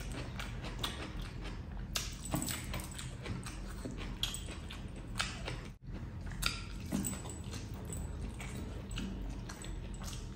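A person chewing close to the microphone, with irregular wet smacking and clicking mouth sounds while eating curry and egg by hand. The sound cuts out briefly a little past halfway.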